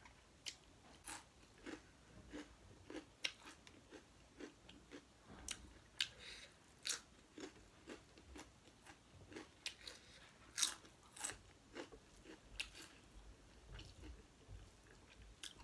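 A person chewing a mouthful of rice and pork curry close to the microphone, with irregular crisp crunches and wet mouth clicks.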